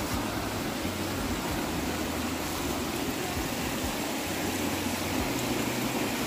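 Steady rushing of a mountain stream running through a rocky gorge.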